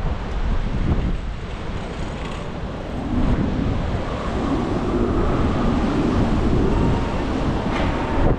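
Wind buffeting the microphone of a bicycle-mounted GoPro while riding, over the steady rumble and hiss of city traffic. The traffic noise grows louder about three seconds in.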